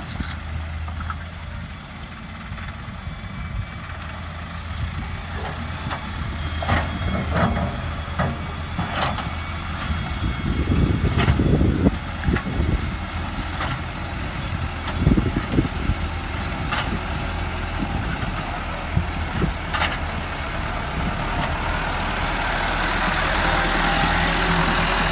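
Diesel farm tractor engines running steadily while a wheeled excavator works, with several sharp clanks and knocks as it loads stones into a tractor trolley. Near the end a tractor drives close by and the engine sound grows louder.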